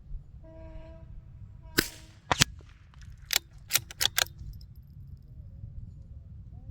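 Several sharp cracks of small-calibre gunfire. The two loudest come about half a second apart, a couple of seconds in, followed by a quick cluster of lighter cracks a second or two later.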